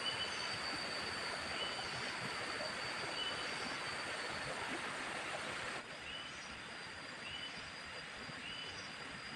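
Outdoor forest ambience: a steady rushing hiss with a thin high whine, and a short chirp repeating about every second and a half. About six seconds in, the sound drops abruptly and the high whine stops.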